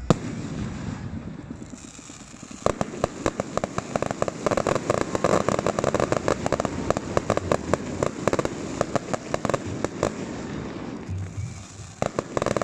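Fireworks going off: a sharp bang at the start, then from about three seconds in a long run of rapid crackling pops that thins out after about seven seconds, with a few last pops near the end.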